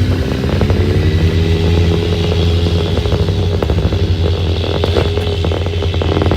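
Polaris RZR side-by-side's engine running steadily under way, its pitch wavering slightly, with frequent clicks and rattles throughout.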